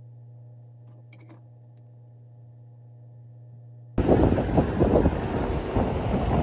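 A steady low hum with a couple of faint clicks about a second in. About four seconds in it cuts abruptly to loud, rough wind noise buffeting the microphone.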